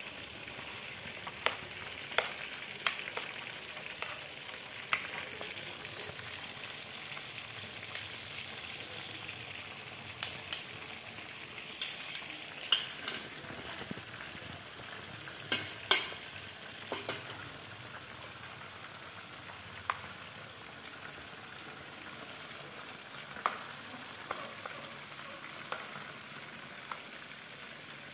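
Breaded chicken deep-frying in hot oil: a steady sizzle, broken by scattered sharp clicks that are the loudest sounds, clustered near the middle.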